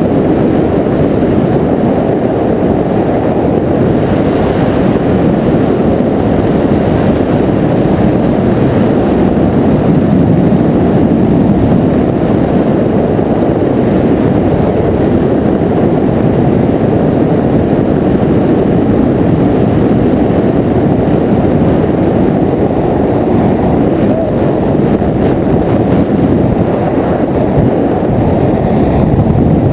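Paramotor trike's engine and caged propeller running steadily in flight, mixed with heavy wind rush on the exposed microphone.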